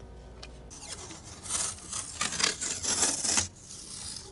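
Adhesive tape pulled off its roll in several quick rasping strips, used to strap a freshly sealed headlight lens to its housing. The pulls stop suddenly about three and a half seconds in.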